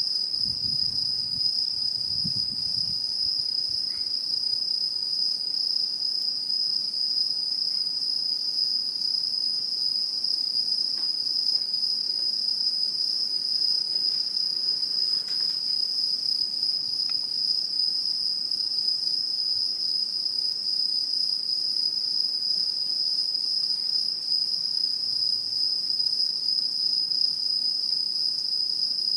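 Autumn insects singing in one continuous, high-pitched trill that holds steady without a break, with fainter, higher trills above it. A few soft low thumps sound in the first couple of seconds.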